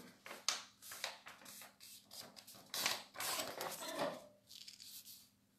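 A pen scratching and tapping on paper in short, irregular strokes, the busiest stretch a little under a second long from about three seconds in, over a faint steady hum.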